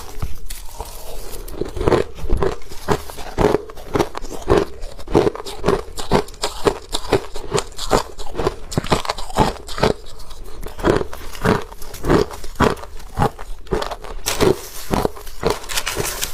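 Ice being bitten and chewed, a steady run of hard crunches about two to three a second.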